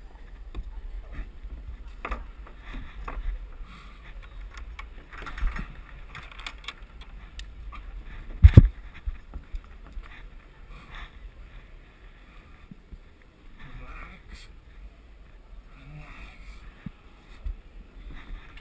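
A climber moving on an indoor climbing wall: scuffs, rubbing and small knocks of hands and shoes on the holds and wall, with a low rumble of handling noise, and one loud thump about eight and a half seconds in.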